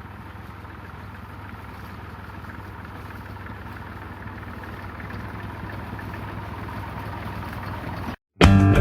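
Small Ferguson tractor engine running steadily and slowly growing louder. Near the end it cuts off abruptly and guitar music starts.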